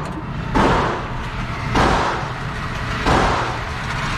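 Three gunshots, evenly spaced about a second and a quarter apart, each followed by a short ringing echo.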